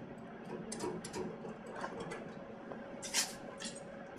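Screwdriver working the mounting screws of a magnetic contactor out of its metal bracket: small metallic clicks and scrapes, with a sharper clatter about three seconds in as the contactor comes loose.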